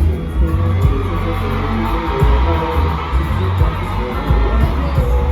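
Loud live concert music with a heavy, pulsing bass.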